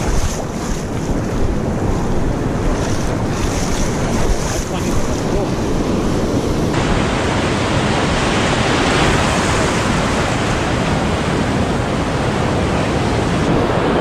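Ocean surf washing around the legs of people standing in the shallows, with wind buffeting the microphone. The sound changes abruptly about seven seconds in.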